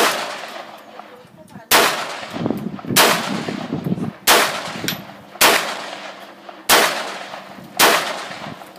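Ekol Firat Compact traumatic (less-lethal) pistol fired seven times in a steady string, about one shot every second and a quarter, each shot dying away over roughly a second.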